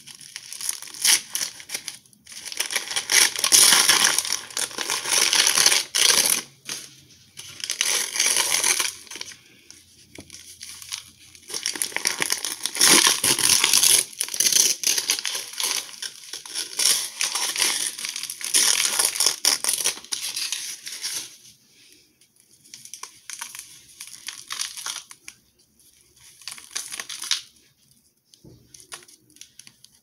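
Cardboard cornstarch box being torn and peeled off a solid block of cornstarch: crackling, tearing paper with crumbling powder, in long busy stretches that thin out to short bursts after about 21 seconds.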